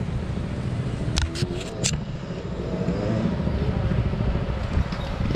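Vintage motocross bike's engine running at a low idle, a steady rumble, with a few sharp clicks about a second in.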